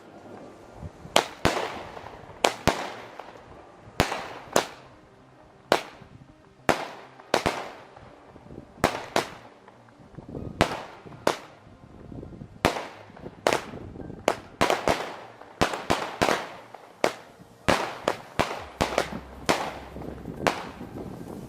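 Fireworks exploding: a long, irregular series of sharp bangs, one or two a second, some in quick pairs, each trailing off in a short echo.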